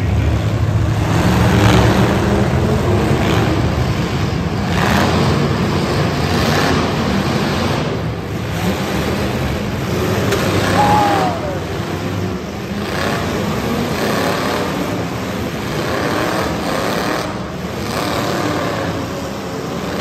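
Several demolition derby cars' engines revving hard together as a heat gets under way on the green flag, with the bangs of cars crashing into each other.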